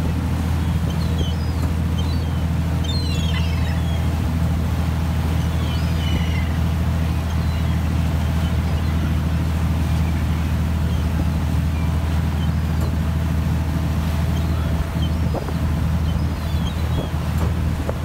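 Boat's engine running steadily, a low drone, with wind on the microphone; gulls following the boat call now and then, high and faint above it.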